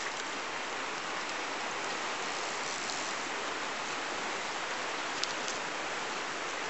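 River water flowing over stones, a steady rushing hiss, with one faint click about five seconds in.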